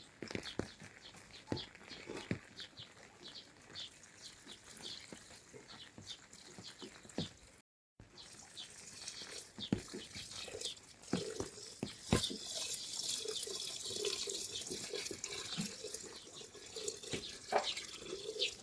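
Water running or splashing, with scattered clicks and knocks. It breaks off briefly about eight seconds in and comes back as a denser, louder hiss.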